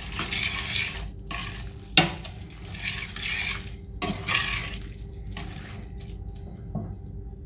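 Metal tongs tossing spaghetti in a stainless steel skillet: wet, slippery stirring sounds of pasta in a loose sauce, with sharp clinks of the tongs against the pan about two and four seconds in.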